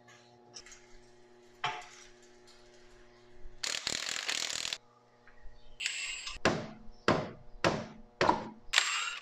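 Cordless impact wrench hammering a car's wheel lug nuts loose: one burst of about a second, then a quick run of short bursts about half a second apart.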